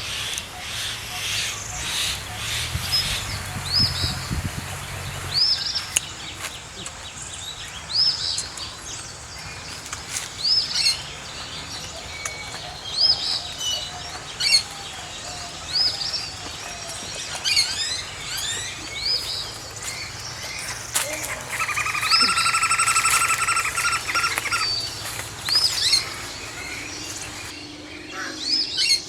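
A wild bird calling over and over, a short high chirp roughly once a second, with other birdsong around it. A steady buzzing sound stands out for a few seconds about three-quarters of the way through.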